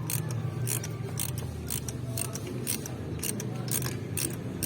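Ratchet wrench clicking in short back-and-forth strokes, about two clicks a second, over a steady low hum.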